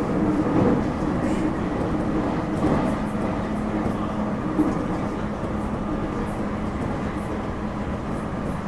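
JR Kyushu 811 series electric multiple unit running, heard from its KuMoHa 810 motor car: steady motor and rail noise with a few held tones, easing slightly in loudness.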